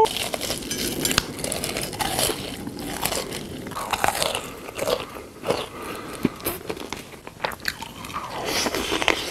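Close-miked eating sounds: crunchy bites and chewing, a dense run of irregular crisp crunches.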